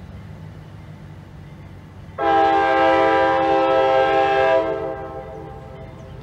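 Diesel locomotive air horn sounding one long blast, a chord of several notes. It starts abruptly about two seconds in, holds for about two and a half seconds, then fades. A low steady rumble runs underneath.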